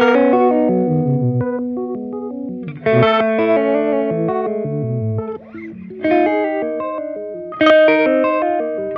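Electric guitar played through an EarthQuaker Devices Arpanoid arpeggiator pedal. Four chords are struck, about 3, 3 and 1.6 s apart, each ringing out while the pedal steps through its notes in quick stepped runs.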